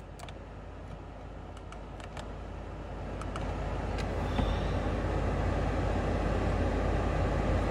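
Car road noise from inside a moving car: a steady low rumble with a rushing hiss that grows louder through the second half as the car picks up speed.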